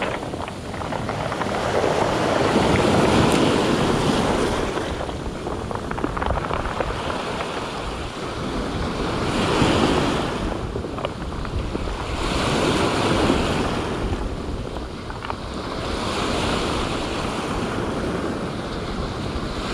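Rough surf breaking and washing up a steep cobble beach, swelling and easing every few seconds, with wind buffeting the microphone.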